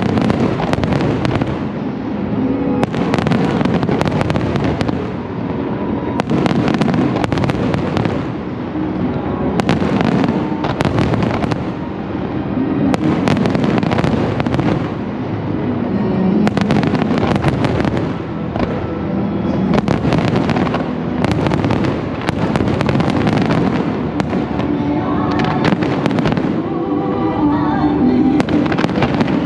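Fireworks display: shells bursting in rapid volleys of bangs and crackle, coming in waves every second or two, with music playing throughout.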